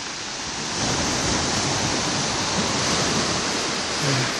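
Sea surf washing against a breakwater of concrete tetrapods: a steady rushing noise that swells louder about a second in and eases off near the end.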